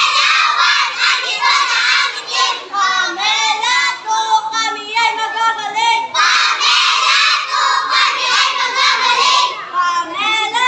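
A group of young girls singing together in high voices.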